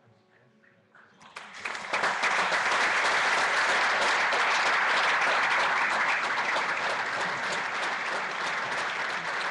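Audience applause that starts about a second in, swells within a second and then holds steady.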